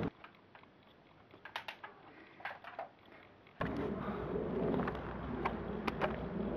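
Quiet, with a few faint clicks, for about the first three and a half seconds. Then a sudden return to outdoor background noise: a steady low rumble with scattered sharp clicks.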